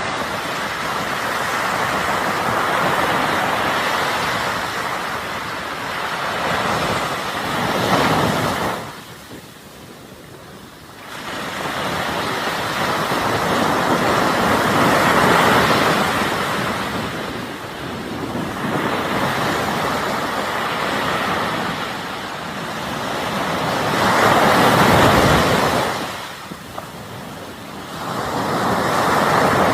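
Ocean waves breaking and washing on a shore, in slow swells that rise and fall every several seconds, with a lull about nine seconds in.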